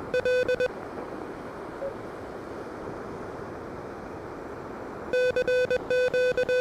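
Morse code from an Elecraft KH1 transceiver: a single steady tone keyed into dots and dashes. It stops within the first second, leaving the receiver's band hiss, and the keying starts again about five seconds in.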